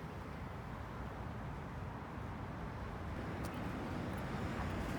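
Steady low rumble of a moving vehicle, growing slightly louder.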